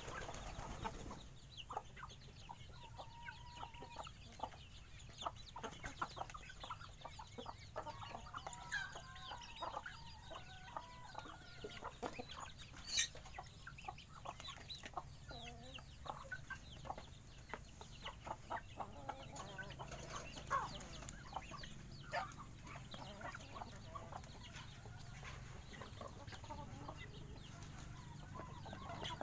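Flock of chickens and chicks clucking and calling as they feed, with many short scattered ticks mixed in.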